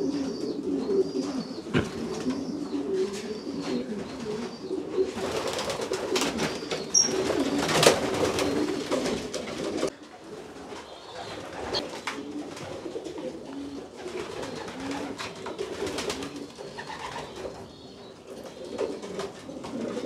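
Homing pigeons cooing in a loft, low coos overlapping one another.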